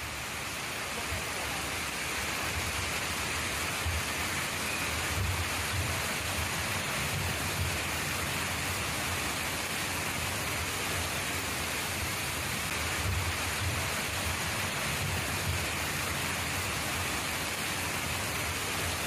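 Muddy floodwater from a flash flood rushing in a torrent, a steady, even roar of water.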